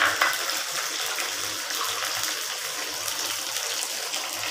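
Sliced onions and green chillies sizzling steadily in hot oil in a clay pot.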